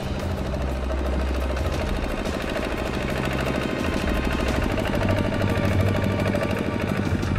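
Single-cylinder diesel engine of a two-wheel walking tractor running steadily with a rapid, even chugging knock while it pulls a loaded trailer over a rough dirt track.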